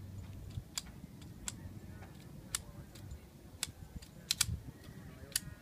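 A pistol being handled: about seven sharp mechanical clicks at irregular intervals, two of them close together near the end.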